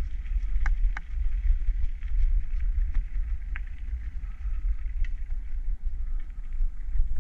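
Deep wind rumble buffeting an action-camera microphone while a mountain bike rolls along a gravel road. A few sharp clicks and rattles come from the bike, two close together about a second in and another in the middle.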